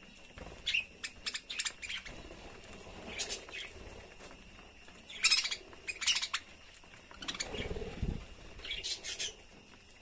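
Budgerigars chirping in quick clusters of short, high chirps every second or two, the loudest about five seconds in, with a lower falling sound near eight seconds.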